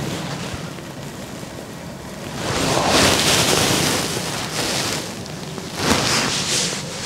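Wind gusting, a rushing noise that swells up about two and a half seconds in and again near the end.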